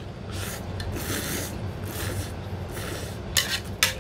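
A person slurping ramen noodles from chopsticks: a series of hissing slurps, about one a second, with sharper ones near the end.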